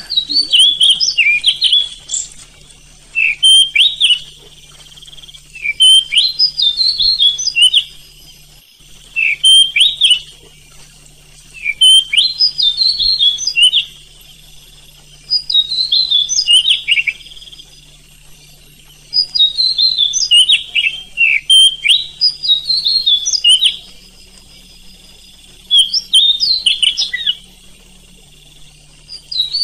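Oriental magpie-robin singing in repeated bouts of rapid, varied whistled notes. Each bout lasts about two seconds, with a short pause before the next.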